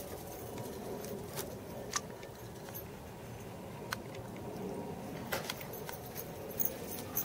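Steady low background rumble and hiss with about six faint sharp clicks scattered through it, from a handheld camcorder being swung around outdoors.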